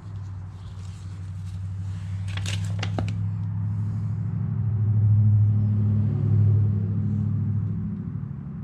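A car engine running nearby, a low steady hum that grows louder to a peak about five to six seconds in and then eases off. A few short clicks come about two and a half seconds in.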